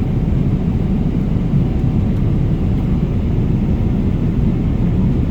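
Steady low rumble of a running vehicle engine, even throughout.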